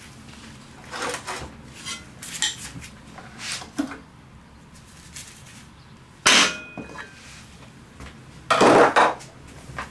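Copper mallet and long screwdriver at work knocking the flywheel off a Briggs & Stratton lawn-mower engine: light metallic taps and clinks, then a loud metal strike about six seconds in that rings briefly, and a cluster of heavy strikes near the end.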